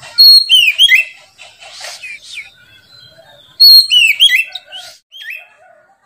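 An Oriental magpie-robin (kacer) singing in loud, clear whistled phrases of quickly sweeping notes. One burst comes just after the start and another about three and a half seconds in, with a shorter, softer phrase near the end.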